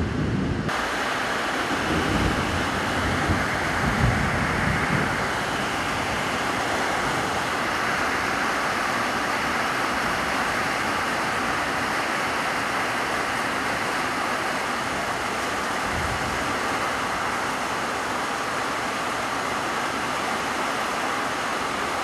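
Heavy rain pouring steadily onto a corrugated metal roof, an even hiss of drops. Low rumbling buffets hit the microphone during the first few seconds.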